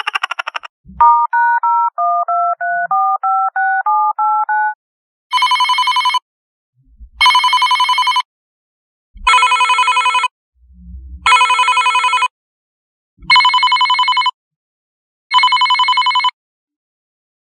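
A phone number keyed in as a quick run of touch-tone beeps, each press a pair of tones, followed by a telephone ringing six times, each ring about a second long with a gap of about a second between rings.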